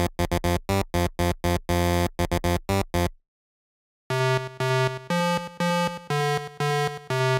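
Electronic synthesizer jingle: a run of short, quick notes, a pause of about a second, then a slower phrase of longer held notes.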